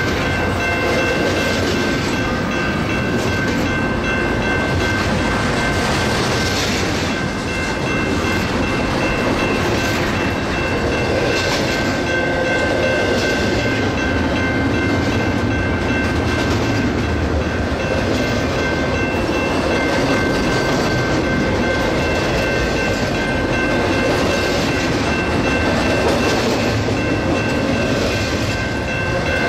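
Double-stack intermodal well cars rolling past: the steady rumble and clatter of steel wheels on the rails, with a thin high-pitched ringing tone over it.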